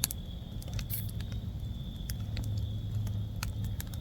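Wood campfire crackling, with scattered irregular pops and clicks over a low steady rumble and a steady high tone.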